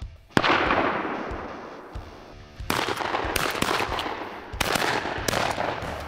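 A shotgun shot about half a second in that rings off over a second or so. From a little under three seconds in, dense irregular crackling and rustling follows.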